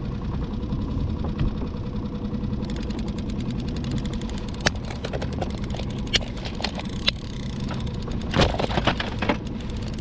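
Skiff's outboard motor running steadily at trolling speed, with sharp clicks and plastic clatter from a lure tray and lures being handled, loudest about eight and a half seconds in.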